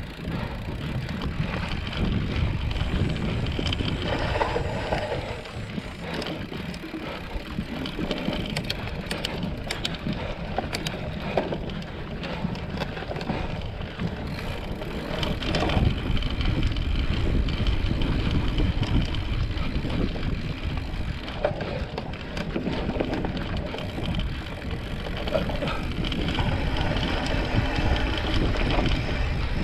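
Mountain bike ridden over a rough trail: tyres rumbling on the ground and the bike rattling and clicking over bumps, with wind buffeting the microphone.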